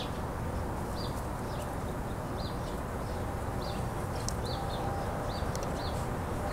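A small bird chirping, about eight short high chirps spaced irregularly, over a steady low background rumble.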